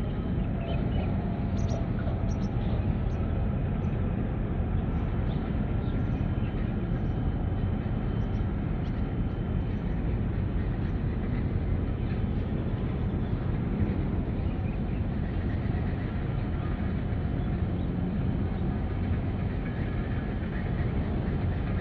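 Steady outdoor harbour ambience: a constant low rumble with faint distant hum and a few small ticks.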